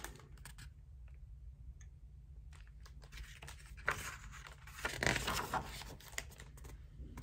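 Pages of a picture book being handled and turned: paper rustling and swishing, loudest about four seconds in and again around five seconds.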